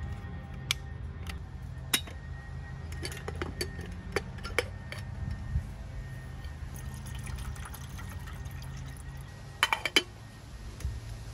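Water poured into a metal camping kettle on a small gas stove, with light metal clinks, then the kettle's lid set on with a short clatter about ten seconds in.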